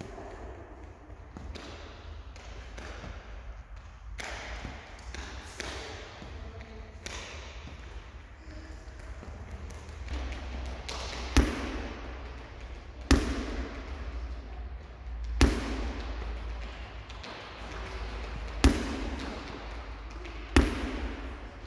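Wooden balance board tipping and knocking against a hard gym floor: five sharp, echoing knocks at uneven intervals in the second half, with fainter knocks and landings before them, over a low steady hum.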